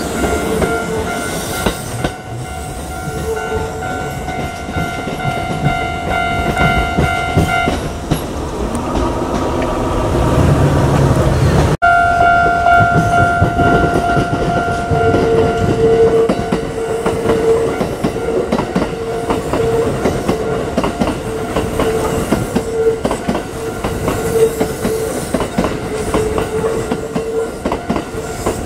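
A Kintetsu electric train running past, its wheels clattering over the rail joints, with steady high ringing tones above the rumble. The sound breaks off sharply at an edit about twelve seconds in and resumes with the train still running.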